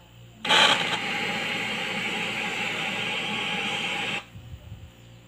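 Static hiss from a Sharp Blue Diamond CRT TV's speaker, switched on while set to an untuned channel. A steady rush of noise starts about half a second in and cuts off suddenly nearly four seconds later.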